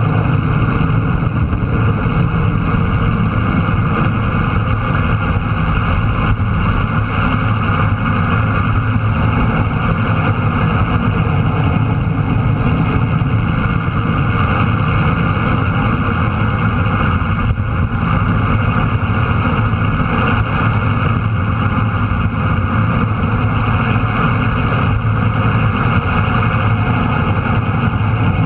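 Motorcycle engine running steadily at a cruise, with constant wind and road noise over the action camera's microphone.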